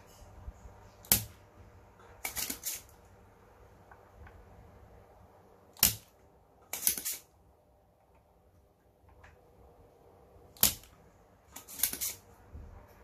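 Spring-loaded manual desoldering pump (solder sucker) firing three times with a sharp snap as it sucks molten solder from joints, each snap followed about a second later by a short rattle of clicks as the plunger is pushed back down to re-cock it.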